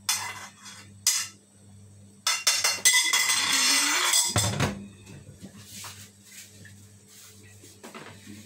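Kitchen clatter of a metal wok and soup bowls: a few sharp clinks, then a loud scraping rush lasting about a second and a half that ends in a low thud, followed by faint small knocks of the bowls being moved.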